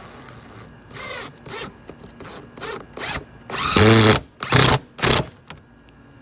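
Power drill run in a series of short trigger bursts, its motor whine rising and falling in pitch with each one. The longest and loudest burst comes about halfway through.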